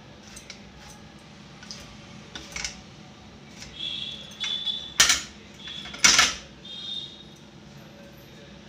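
Steel kitchen utensils clinking and clattering: several sharp knocks, the loudest two about five and six seconds in, with short metallic rings between them.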